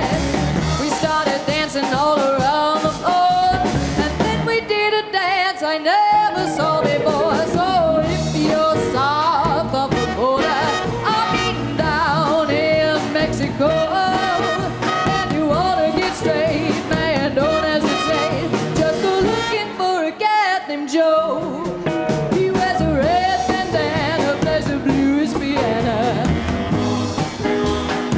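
Live swing band playing an instrumental break: a wavering lead melody over guitar, bass and drums. The bass and drums drop out briefly twice, about five seconds in and again near twenty seconds.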